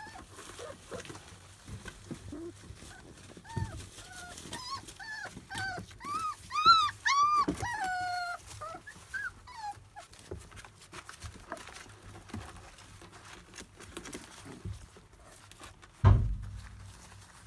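Labrador puppies whimpering and yelping in a quick string of short cries that rise and fall in pitch, with small knocks and rustling as they squirm; a single loud thump comes near the end.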